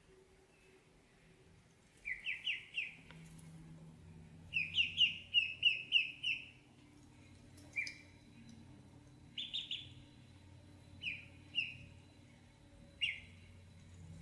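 Ducklings peeping: short, high chirps in quick runs of several at a time, with single peeps and pauses between the runs.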